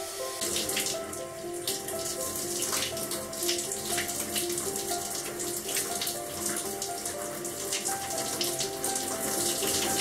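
Handheld shower head running, water spraying and splashing over a person washing their hair in a small shower stall. A melody of background music plays over it.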